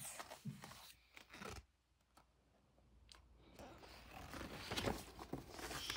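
Pages of a paper picture book being handled and turned: soft paper rustling with a few light clicks, growing louder in the second half.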